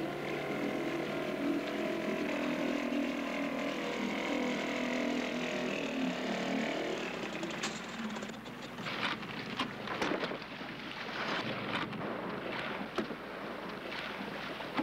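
Small outboard motor on a skiff running, its pitch dropping and fading about six or seven seconds in as it throttles down and stops. Then scattered knocks and clatter from the boat coming up against the wooden float and the men moving about in it.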